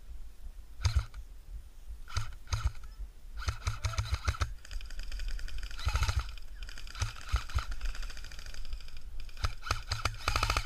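Airsoft guns firing, single shots and short bursts, with a quick burst near the end.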